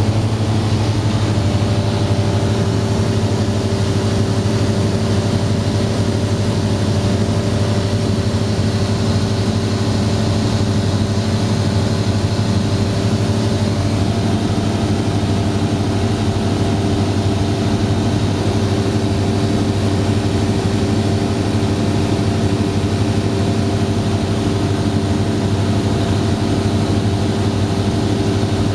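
Cessna 172's piston engine and propeller running at steady cruise power, heard from inside the cockpit: an even, unchanging drone with a strong low hum.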